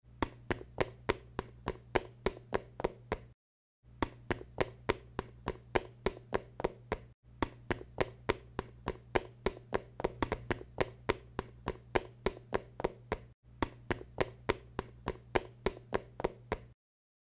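Regular light taps, about four a second, over a steady low hum, breaking off abruptly three times and stopping near the end.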